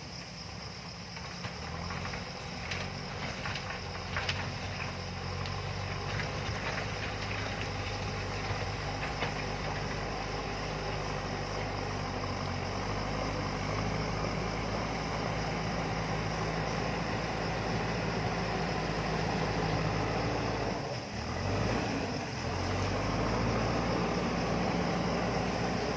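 JCB backhoe loader's diesel engine running steadily as the machine works, with a few sharp knocks in the first several seconds and a brief drop about three-quarters of the way through.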